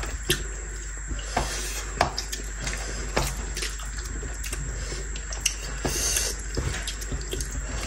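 Close-up eating sounds of two people eating rice by hand from ceramic plates: fingers mixing rice and curry, chewing, and scattered light clicks and taps against the plates.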